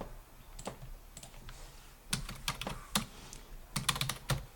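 Computer keyboard keys being tapped, a scattering of separate clicks at uneven spacing rather than steady typing.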